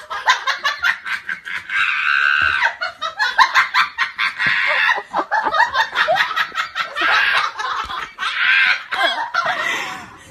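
A person laughing hard and without a break, in quick repeated pulses of laughter.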